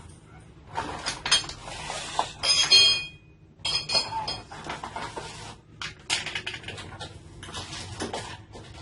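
Metal parts of a chainsaw conversion kit clinking and rattling as they are handled, with a short metallic ring about three seconds in.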